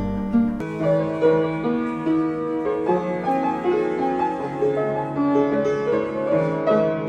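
Background music in an instrumental passage without singing: piano playing a melody over chords.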